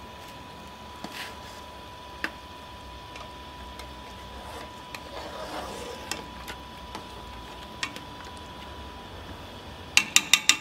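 A metal ladle stirring soup in a large aluminium pot, with a few light clinks against the pot over a steady background hum, then four quick sharp clinks near the end as the ladle knocks on the pot's rim.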